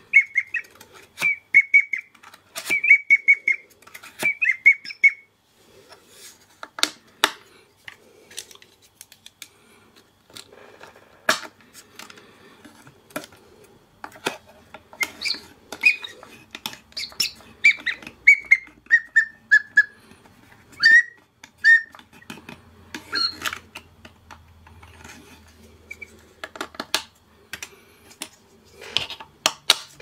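Small 3D-printed plastic whistles blown by a hand-pumped paper bellows, giving short bird-like toots. A quick run at one pitch comes in the first few seconds, and around the middle a series steps down in pitch. Sharp clicks and knocks from handling the bellows and the whistle pieces come in between.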